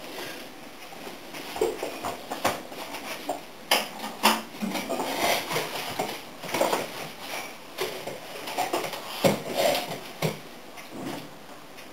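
Hail pellets from a thunderstorm striking hard roofs and sills nearby: irregular clicks and taps, a few a second, some sharper and louder than others.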